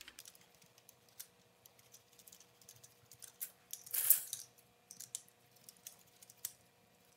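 Hand spline tool rolling rubber spline into the channel of a metal window-screen frame: scattered small clicks and ticks, with one brief louder scrape about four seconds in.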